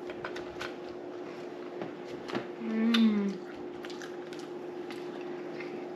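People biting into and chewing crisp sugar cookies, with scattered small crunching clicks, and a short falling 'mm' of a voice about three seconds in.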